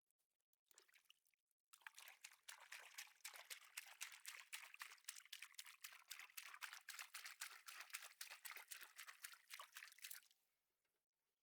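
Water splashing and trickling in a quick, uneven patter; it starts about two seconds in and stops shortly before the end.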